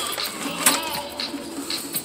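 Background music playing, with a sharp click about two-thirds of a second in.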